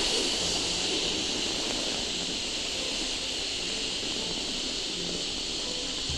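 A long, steady, breathy "heeee" hiss exhaled by a person: the qigong healing sound for the San Jiao (triple burner), voiced on the out-breath. It starts abruptly just before and holds steady, with soft background music underneath.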